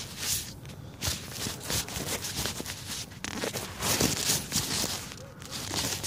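Uneven rustling and scuffing of hands working right by the microphone while steel-reinforced epoxy putty is pressed onto a rusted exhaust pipe, loudest about four seconds in.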